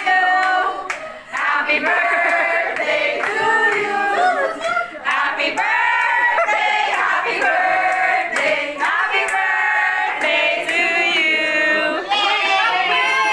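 A group of voices singing together, with some hand clapping.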